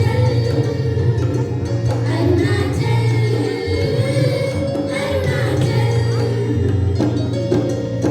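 Music with voices singing over a steady, held bass line.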